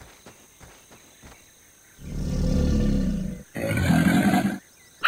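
Cartoon crocodile roaring twice: a low rumbling roar about two seconds in, then a shorter one with a hissing edge. A few faint taps come before it.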